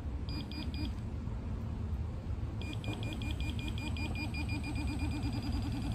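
Handheld metal-detector pinpointer beeping: three short beeps, then, about two and a half seconds in, a fast run of beeps at around six a second that quickens near the end. The rapid beeping signals a metal target, gold inside a chunk of conglomerate rock.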